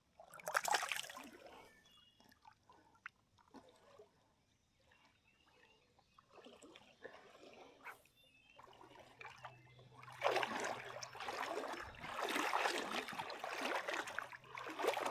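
Creek water splashing and sloshing in uneven bursts: a short burst about half a second in, then a longer stretch of splashing in the last five seconds.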